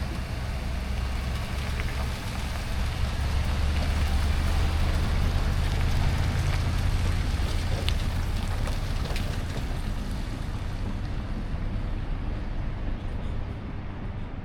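A boat motor running steadily with a low hum, under a hiss of wind and water. The hiss fades near the end.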